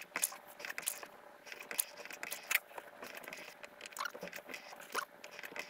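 Hands and a small metal wrench working at a brake master cylinder: irregular light clicks, taps and scrapes.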